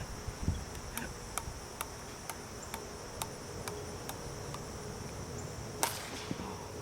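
Steady high-pitched insect drone, with a run of faint, evenly spaced clicks and one louder sharp crack about six seconds in.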